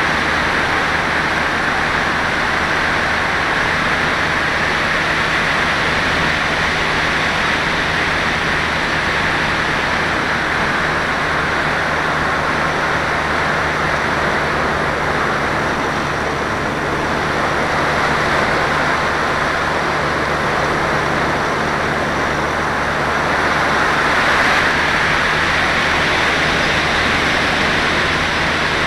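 Steady rushing airflow over a glider's onboard camera in flight, with a faint low hum underneath. It swells slightly about three-quarters of the way through.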